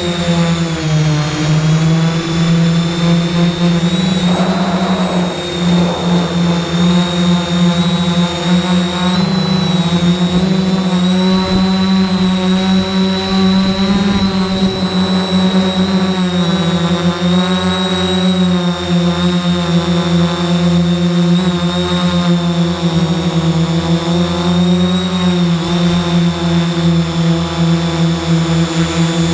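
3DR X8 octocopter's eight electric motors and propellers running in flight, heard from aboard the drone. It is a loud, steady buzzing hum with a thin high whine above it, and its pitch drifts up and down as the throttle changes.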